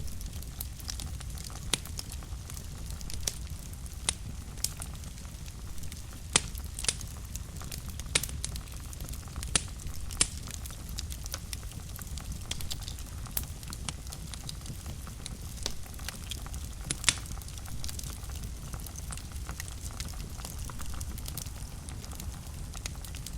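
Wood fire burning in a fireplace: a steady low rumble with scattered sharp crackles and pops, several louder ones in the first two-thirds, fewer near the end.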